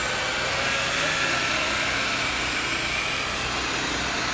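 Electric rotary polisher running steadily with a faint whine, its pad buffing a car's painted rear bumper.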